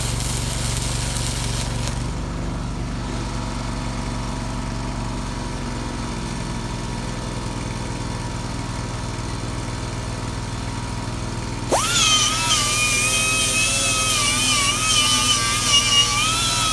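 Shop air compressor running with a steady low hum, with a hissing air tool that stops about two seconds in. About two-thirds of the way through, an air tool starts up with a high, wavering whine that is the loudest sound.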